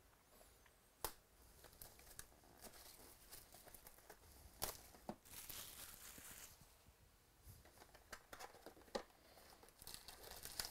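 Faint tearing and crinkling of trading-card packaging as a box of 2017 Chronicles baseball cards is opened, with a few sharp clicks and a burst of rustling about five seconds in.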